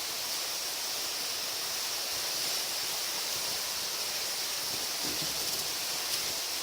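Waterfall and river rapids rushing steadily, an even hiss of running water.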